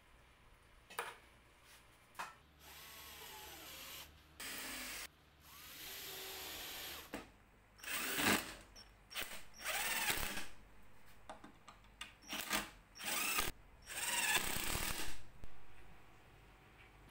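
Cordless drill driving wood screws into plywood in a series of short runs of a second or two each.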